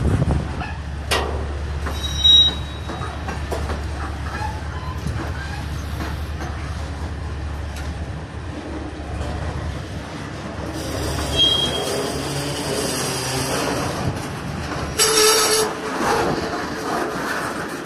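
Freight train cars rolling past close by: steady wheel-on-rail noise with a click over a rail joint and short high-pitched wheel squeals, the loudest about fifteen seconds in.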